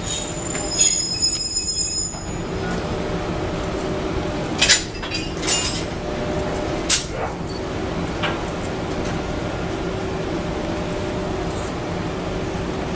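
JNR Class EF81 electric locomotive moving slowly, with a steady hum from its running machinery. A high wheel squeal comes in the first two seconds, and three or four sharp metallic clinks sound around the middle.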